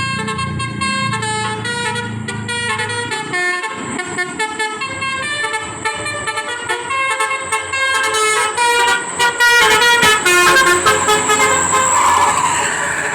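Basuri telolet horn on a large vehicle playing a tune of quick, stepping notes, louder and busier about eight seconds in.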